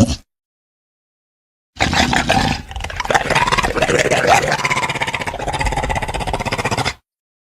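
An electronic toy's sound-effect chip playing a growling creature roar. It starts about two seconds in, lasts about five seconds and cuts off abruptly.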